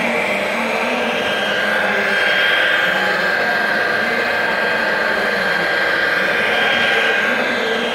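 Hydraulic pump of a 1:14 scale RC Komatsu PC800 excavator whining steadily as the boom and arm dig, the whine swelling a couple of times under load.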